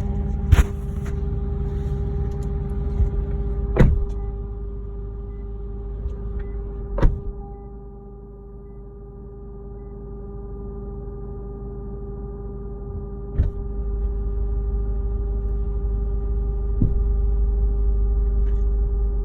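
A steady buzzing hum at one fixed pitch with overtones, coming from under the rear seats of a Lexus GS F. It sits over a low rumble that fades about seven seconds in and comes back about halfway through, with a few sharp knocks along the way.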